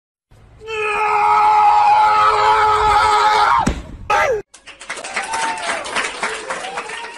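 A long, loud, high-pitched scream held for about three seconds that drops away at the end, followed by shorter excited cries and scuffling.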